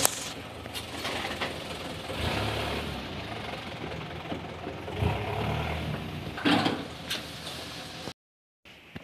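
A motor vehicle engine running steadily, with a few sharp knocks over it; the sound cuts off abruptly near the end.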